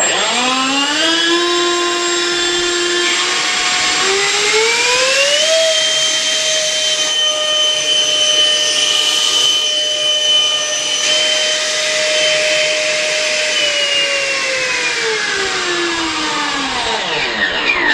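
Electric ducted fan in a scratch-built MiG-21 model jet fuselage spooling up to a high, turbine-like whine, stepping up in pitch about four seconds in, holding steady at high throttle, then winding down and stopping near the end.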